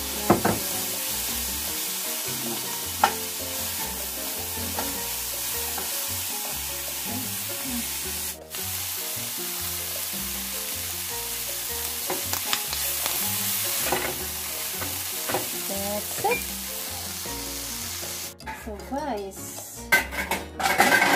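Chopped vegetables (onion, mushroom, capsicum and corn) sizzling in a frying pan as a wooden spoon stirs them, with scattered knocks of the spoon against the pan. Near the end the sizzle drops away, leaving a few separate clinks.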